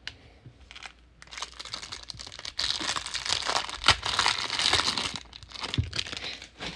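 A shiny Select basketball card pack's plastic wrapper being torn open and crinkled by hand, with a sharp snap in the middle as it rips.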